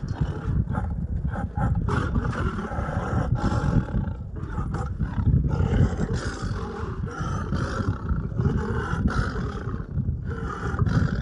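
Lion roaring and growling in a continuous deep, rough rumble.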